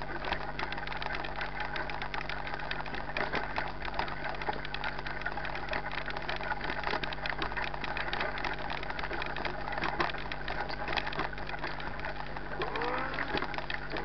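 Mountain bike rolling over a rough grassy trail: a dense, fast clatter of rattles and ticks from the bike over a steady low hum.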